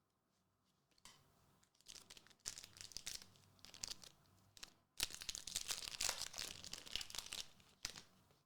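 A Gundam Card Game Newtype Rising booster pack wrapper being torn open and crinkled in the hands. The loudest tearing starts suddenly about five seconds in.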